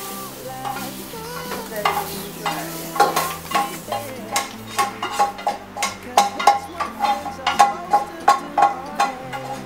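Spatula scraping and knocking against a nonstick frying pan as fried sausage slices are pushed out onto a paper-towel-lined plate. Hot oil sizzles at first. From about three seconds in, quick ringing knocks come about three a second.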